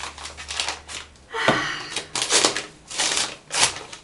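A small gift being unwrapped by hand: its wrapping crinkling and rustling in a quick run of crackling bursts.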